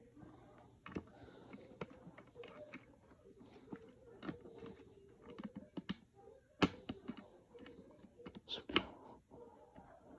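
Irregular light clicks and taps of small LEGO plastic pieces being handled, with a louder clack about two-thirds through and another near the end.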